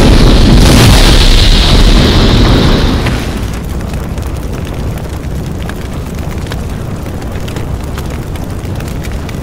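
An explosion-like boom and heavy rumble, standing in for a meteor strike, dies down about three seconds in to a steadier low rumble with scattered crackles.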